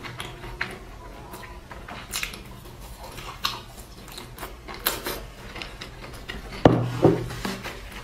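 Close-miked chewing of a pan-fried meat-filled flatbread: wet mouth sounds with scattered sharp clicks and crackles from the crisp crust. A louder knock comes about two-thirds of the way through.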